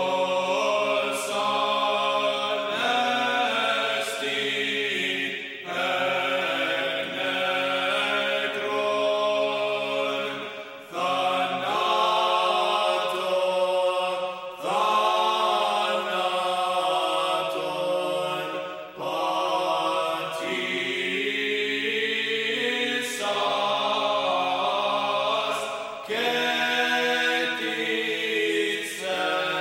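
Unaccompanied liturgical chant sung by a choir, in long held notes and phrases of a few seconds each.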